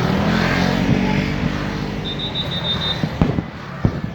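A motor vehicle's engine passing close by, its pitch dropping slightly as it goes, followed near the end by several sharp firework bangs.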